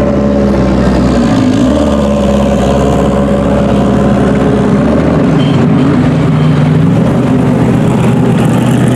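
GT race car engines running at low speed as the cars roll past close by, several engines' notes overlapping. The pitch steps a couple of times as a car's revs change.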